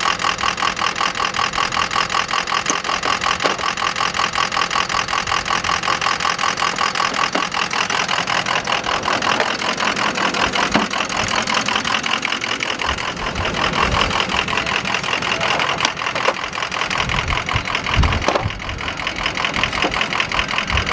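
An engine idling steadily, with a few sharp metallic clicks from hand tools and some low knocks near the end.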